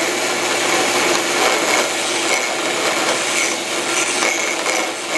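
A bench belt-and-disc sander running steadily while the cut end of the umbrella pole's thin-wall tubing is held against it and ground smooth.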